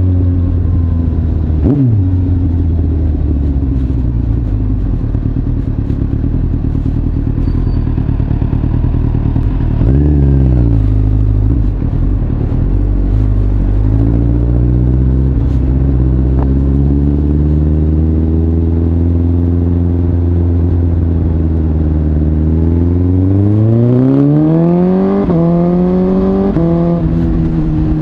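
Suzuki GSX-S1000's inline-four engine breathing through an Arrow aftermarket muffler, heard from the rider's seat. It runs steadily at low revs, gives a short rev up and back down about ten seconds in, then pulls away near the end, the revs climbing and dropping at two upshifts.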